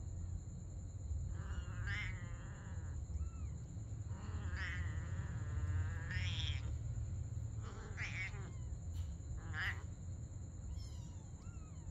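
Domestic cats meowing: about five separate meows a second or two apart, some rising in pitch, over a steady low hum.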